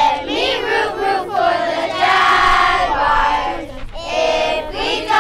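A group of children singing a song together, in sung phrases with held notes and a short break about four seconds in.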